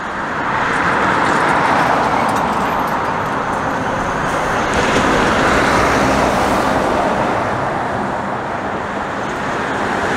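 Cars and a semi-trailer truck hauling a race car transporter driving past close by: steady tyre roar and engine noise, building about a second in and loudest as the truck goes by, easing slightly near the end.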